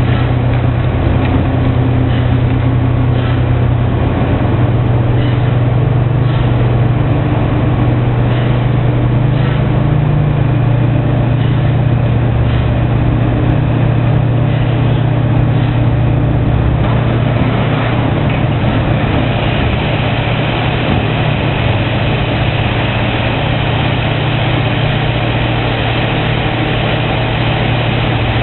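Large diesel excavator engine running steadily under load, with faint knocks now and then in the first half, typical of rubble being handled.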